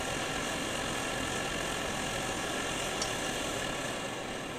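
Steady roar of two Optimus 8R white-gas stove burners. One is being turned down to a low simmer, and the sound eases slightly near the end. A faint tick about three seconds in.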